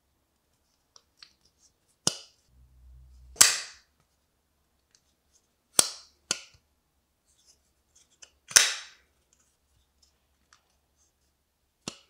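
Giant Mouse Jagt folding knife being opened and closed by hand: six sharp snaps of the blade and lock, the loudest about three and a half seconds in.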